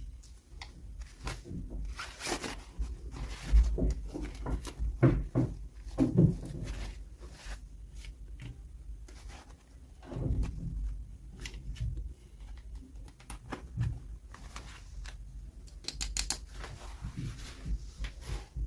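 Hands unboxing and handling toy packaging: irregular rustling, tearing and small clicks and taps, with a few louder knocks about two to six seconds in.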